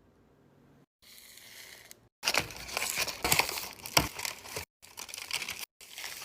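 Packaging wrap being crinkled and crumpled by hand, in loud crackling spells with sharp clicks, broken off abruptly by short gaps.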